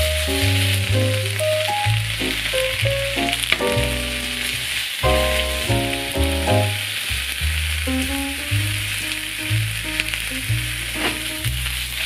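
Food sizzling steadily as it fries in a pan, under background music with a melody and bass line.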